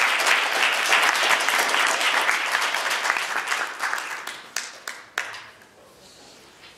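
Audience applauding, a dense patter of many hands that thins out about two thirds of the way in to a few scattered last claps, then stops.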